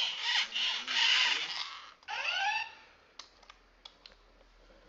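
Program-a-Bot toy robot sounding off as it is switched into alert mode: a harsh electronic noise for about two seconds, then a short falling electronic sweep. After that come a few light plastic clicks as it is handled.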